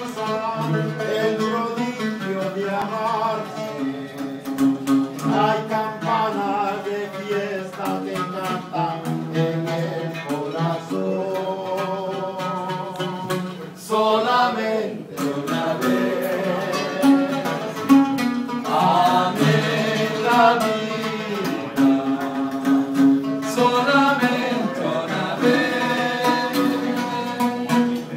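A man singing, with instrumental accompaniment.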